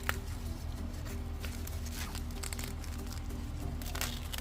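Background music with steady held notes, over a low hum, with a sharp snap just after the start and a few crisp rustles later on.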